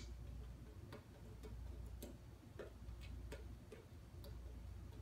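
Light, irregular clicks and taps from a Frolicat laser toy as a cat paws at its top, about nine in a few seconds, over a steady low hum.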